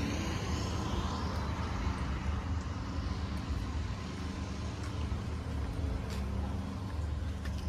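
Steady low rumble of motor vehicles, like road traffic.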